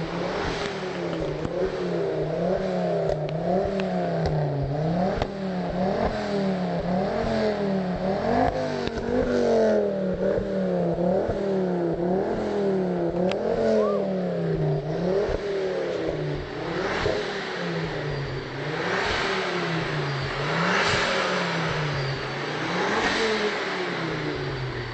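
Ford Focus RS engine revving up and down again and again, a rise and fall in pitch about every second or two.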